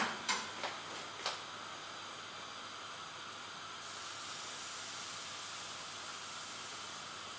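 Steady hiss of crêpe batter cooking in hot crêpe pans on a gas hob at high heat, with a few light knocks in the first second or so.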